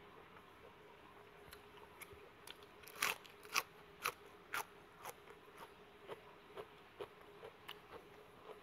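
A person biting into a crisp raw vegetable: a few loud crunches about three seconds in, then steady chewing with crunches about twice a second that slowly fade.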